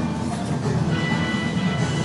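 Background music with a steady low bed; two sustained high notes come in about a second in.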